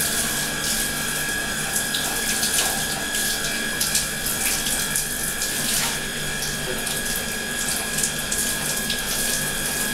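Water from a handheld shower running steadily through long hair and splashing into a bathtub, with a steady high tone under the rush of water.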